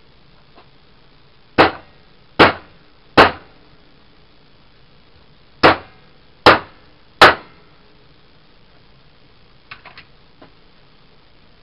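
Hammer striking a homemade hole punch made from a filed piece of brake line, driving it through moped-tire rubber and webbing backed by steel: six sharp strikes in two sets of three, each with a brief ring. A few light clicks follow near the end.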